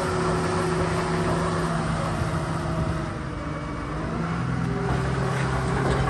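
Vögele Super 1800-3i tracked asphalt paver running as it turns on its crawler tracks: a steady diesel engine drone whose pitch drops about halfway through.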